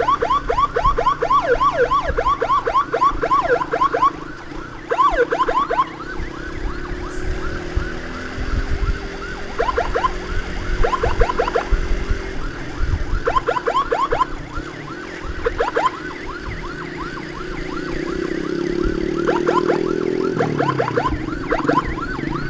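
An emergency siren yelping in fast rising-and-falling sweeps, about five a second, for the first four seconds, then sounding in short blasts every few seconds. A motorcycle engine runs steadily underneath and revs up near the end.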